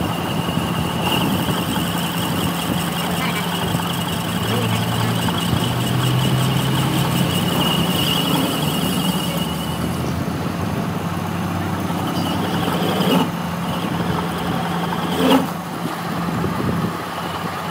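Metal lathe turning down a steel axle end, its tool peeling off long curling chips. The machine runs steadily, with a high cutting whine through about the first half, and there are two sharp knocks near the end.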